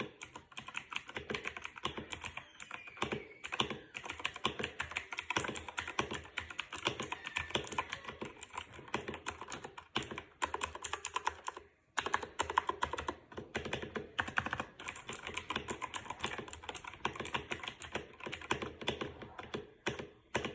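Fast, continuous typing on a cheap computer keyboard, the keys clacking in quick runs, with a short pause a little past halfway.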